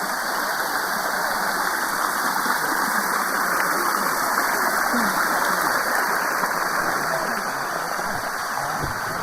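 Waterfall water rushing steadily over rock, close by.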